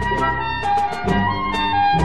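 Instrumental background music: a slow melody of held notes over low bass notes that recur about every half second.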